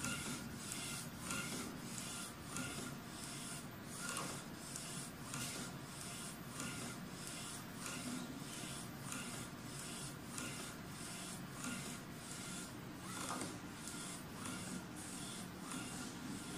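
DEM-JET UV3 flatbed UV printer printing on a tray of pens: the print-head carriage sweeps back and forth in an even rhythm of about two passes a second, over a steady hiss.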